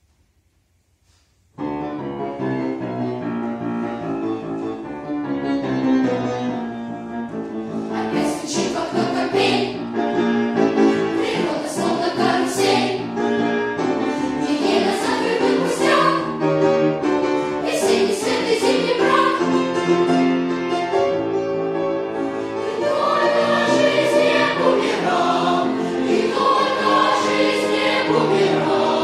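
Boys' choir singing with grand piano accompaniment; the music begins about a second and a half in after near silence.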